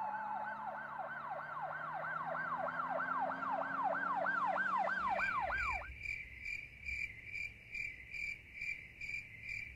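An electronic tone swooping downward over and over, a siren-like comedy sound effect, which stops about six seconds in. Cricket chirping then takes over in a steady pulse of about two chirps a second.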